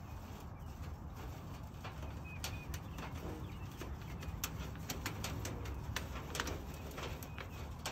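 Wind buffeting the microphone with a steady low rumble, scattered with many short sharp clicks and a few brief bird chirps about halfway through.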